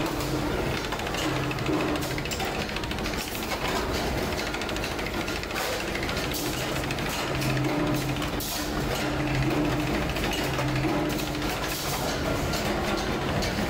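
A small motor-driven roller machine running, its gears and rollers clattering steadily as a sheet-steel mudguard is fed through to form its edge.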